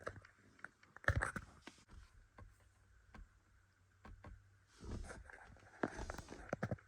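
Faint scattered clicks, taps and light knocks, with a quiet steady hum underneath: a laptop and its OBD cable being handled and set up.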